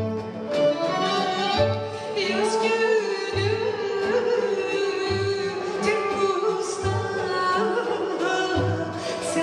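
A woman singing a Kerkük Turkmen folk song (türkü) to a live instrumental ensemble with strings, over a low beat that recurs about every second and a half. Her voice comes in about two seconds in, after an instrumental passage.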